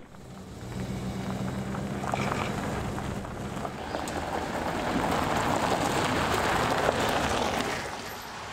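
Self-built camper van driving past on a gravel road: a steady engine hum, then tyres crunching on the gravel, growing louder as it nears and passes about seven seconds in, then fading away.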